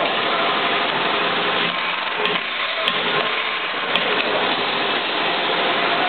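Manual milling machine running with a steady mechanical drone, and a few short clicks between about two and four seconds in.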